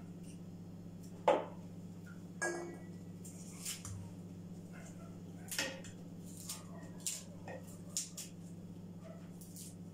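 Scattered light knocks and clinks of plates and utensils while green garlic stalks are trimmed, with the loudest knock about a second in, over a steady low electrical hum.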